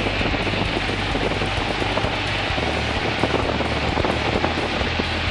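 Light aerobatic airplane in flight, heard inside the cockpit: steady engine drone under loud, even rushing airflow noise.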